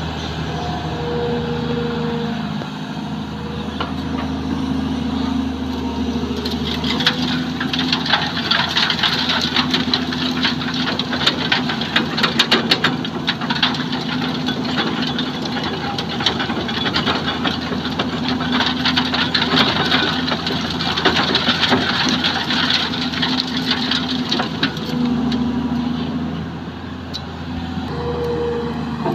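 Kobelco SK200 hydraulic excavator's diesel engine running and rising and falling under hydraulic load. Through the middle there is a long crackling rattle as a bucketload of sand and stones pours onto a steel sieve screen and into a dump truck's bed.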